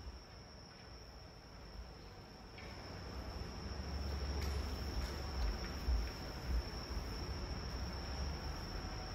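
Steady high-pitched whine, like a single insect trill, over low rumbling room noise that grows about three seconds in, with a few dull low thumps between about five and seven seconds in.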